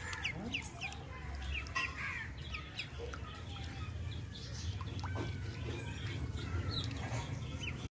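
Ducklings peeping in short, scattered high chirps, one call held a little longer about five seconds in, over a steady low hum.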